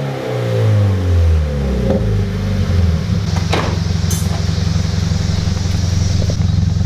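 Subaru BRZ's 2.0-litre flat-four engine through an aftermarket MXP Comp RS catback exhaust, its revs falling after a throttle blip and settling into a steady idle after about two and a half seconds. A short sharp crack comes about three and a half seconds in.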